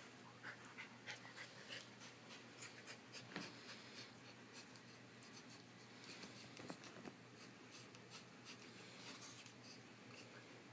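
Faint scratching and scuffling of a corgi puppy and a ferret wrestling on carpet: paws and claws scrabbling with irregular small clicks and rustles.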